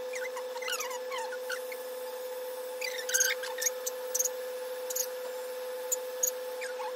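Corded electric hair clippers running with a steady hum while cutting hair. Short, high, squeaky chirps come and go over the hum.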